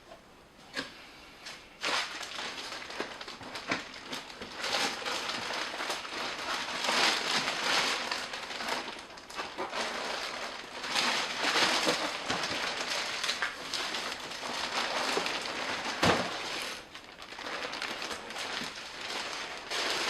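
Packaging being handled inside a 3D-printer box: plastic wrap and cardboard or foam crinkling and rustling, with one sharp knock about three-quarters of the way through.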